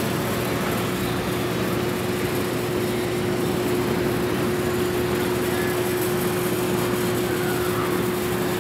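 Steady city background noise: an even rushing haze with a constant hum running through it, and a few faint high chirps.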